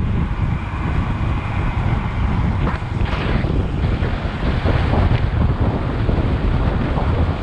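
Wind buffeting the microphone of a camera carried on a moving road bike: a steady low rumble that flutters throughout.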